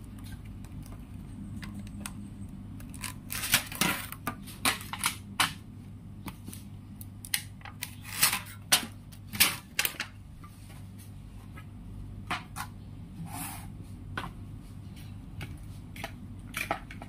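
Thin aluminium foil food trays being handled and set down, giving irregular bursts of crinkling and clicking over a steady low hum.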